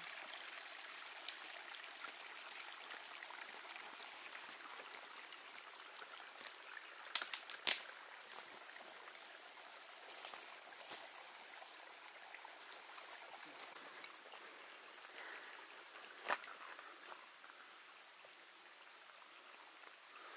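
Forest ambience of a small stream trickling steadily, with a bird giving short high chirps twice and a few sharp clicks or snaps. The loudest clicks come a little past seven seconds in.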